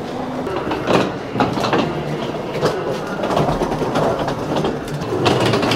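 Railway station noise: a train running through, with steady rumble and irregular clatter.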